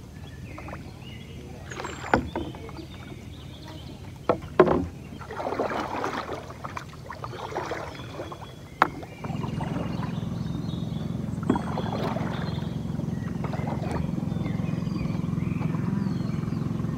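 A wooden paddle working the water beside a bamboo raft: splashing strokes with a few sharp knocks against the bamboo. A steady low hum comes in about nine seconds in.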